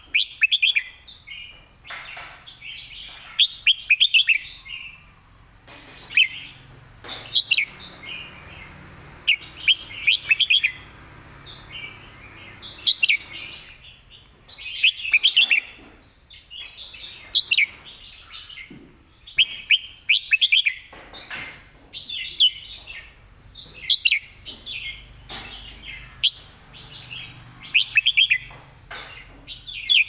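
Caged red-whiskered bulbul singing: short, bright, loud phrases of quick whistled notes, repeated every two to three seconds.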